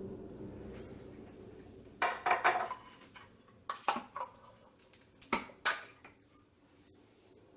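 Metal soup cans being handled and set down, making clinks and clatter: a longer rattling clatter about two seconds in, a few sharper clinks near the middle, and two short knocks later.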